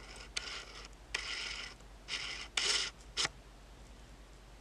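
Trading cards handled and slid against one another: four short papery scraping strokes, then a single click a little after three seconds.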